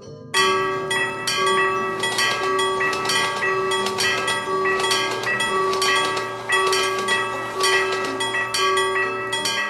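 Several level-crossing warning bells ringing at once, their rapid clanging strikes overlapping, over a low steady hum. The sound starts a moment in and cuts off abruptly near the end.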